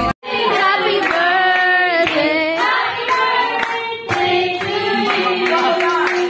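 Singing with hand-clapping: a voice carrying a sustained, gliding melody, over light claps.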